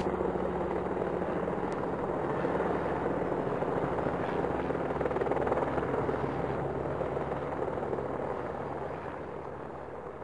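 Helicopter sound effect: a steady engine and rotor drone that fades out over the last couple of seconds.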